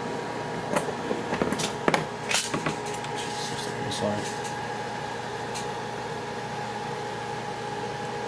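Handling noise from the Korg A3's metal rack chassis: a quick run of clicks and light knocks between about one and three seconds in, then one more small knock. A steady hum with a faint whine runs underneath.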